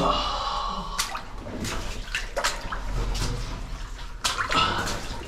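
Water splashing and sloshing as people move through a shallow cave stream, with several short, sharp splashes.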